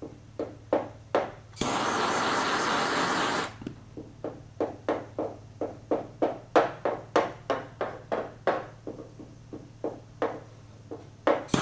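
Two stretches of steady hissing that start and stop abruptly, typical of a propane torch heating a tinned body panel for leading. Between them comes a quick run of short, sharp strokes, a few a second, over a low steady hum.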